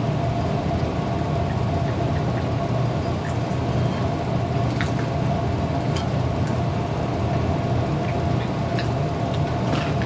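Steady background hum with a constant mid-pitched tone and a low rumble, with a few faint scattered clicks.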